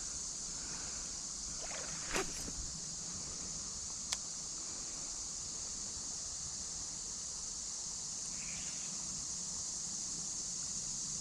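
Steady hiss of flowing creek water, with a short knock about two seconds in and a sharp click about four seconds in.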